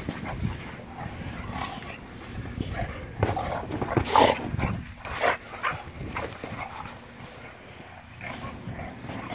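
Two boxer dogs playing rough over a large rubber ball: irregular dog noises and the scuffle of mouths and paws on the ball, busiest about three to five seconds in.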